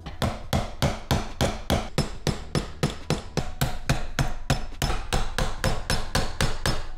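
Hammer striking metal in a rapid, steady rhythm of about four blows a second, knocking the tightly held copper windings out of an electric motor's steel casing.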